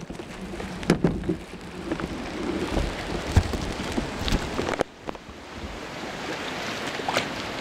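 Sea water sloshing and splashing around a kayak, with a few sharp knocks and splashes.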